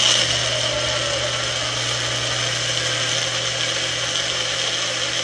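Magic Bullet personal blender running steadily, its motor whirring with a constant high whine and low hum as it blends cottage cheese and eggs into a smooth batter.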